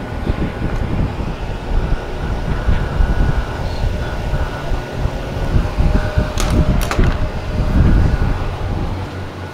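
Steady low rumble with gusts of wind noise on the microphone, like a vehicle on the move. Two short sharp clicks come about six and a half and seven seconds in.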